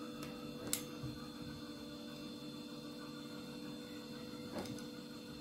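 Steady electrical hum, with two faint taps, one about a second in and one near the end, as a knife cuts rolled pie dough into strips on baking paper.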